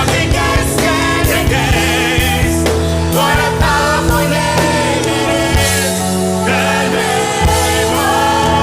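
Gospel worship band music with a sung vocal line over a steady beat.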